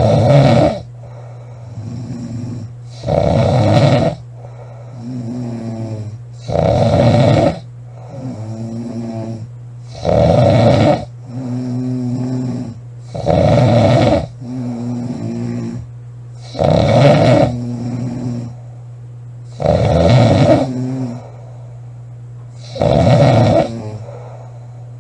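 A woman snoring loudly and steadily: a loud snore about every three seconds on the in-breath, with a quieter, longer sound on each out-breath between.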